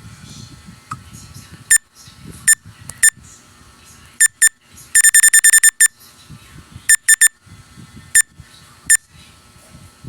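Basketball scoreboard buzzer giving short, high-pitched electronic beeps: single beeps and quick pairs, with a rapid run of about eight beeps near the middle, over a low background murmur.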